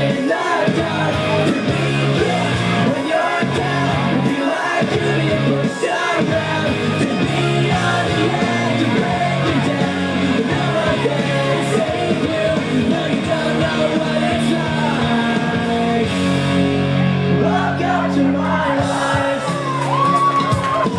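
Wrestler's entrance music: a rock song with a singing voice, playing loudly and steadily.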